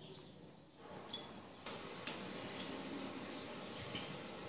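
A serving spoon ladling thick vegetable curry into a glass bowl, with a few faint clinks of the spoon on the glass over a low steady hiss.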